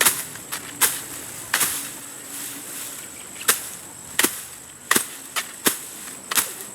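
Bolo (machete) chopping through grass and weeds: about nine sharp swishing cuts at an uneven pace, up to one or two a second. The blade is dull, which the user takes for about the bluntest tool there is. A steady high insect-like whine runs underneath.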